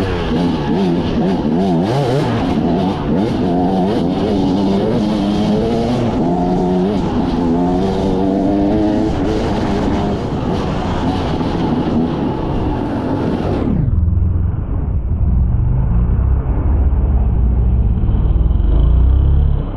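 Off-road motorcycle engine on an enduro trail ride, revving up and down again and again as the rider works the throttle. About 14 seconds in, the sound turns suddenly muffled and dull, leaving a heavy low rumble of engine and wind that grows louder near the end.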